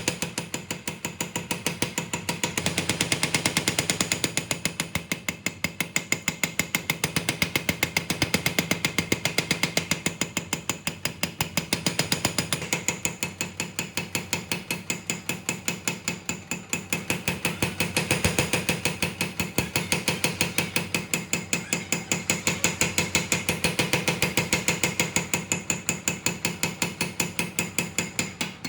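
A forge hammer striking steel in a fast, even run of about five blows a second, with a metallic ring. The blows swell and fade in loudness every few seconds as the steel is forged.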